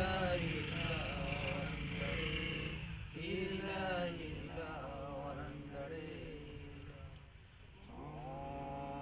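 Voices chanting a ritual prayer in drawn-out, sing-song lines, with a steady held note starting about a second before the end. A constant low rumble runs underneath.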